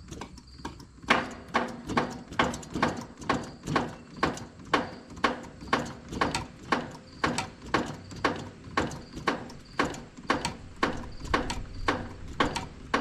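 Hand pump being worked steadily, about two strokes a second, each stroke a short click with a quick falling squeak, as it forces oil under pressure into a cylinder of a seized engine to free it.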